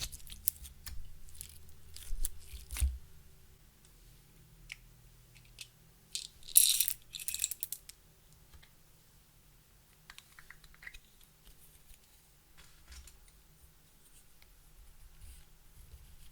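Clear slime being worked by hand: sticky clicks, pops and crackles, with a louder burst of crackling about six and a half seconds in.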